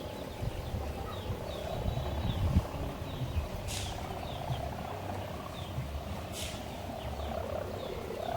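Sawangan, a bamboo kite hummer, droning from a kite overhead: a steady, wavering hum. Two brief hissy swishes, about four seconds and six seconds in, and a low rumble sound beside it.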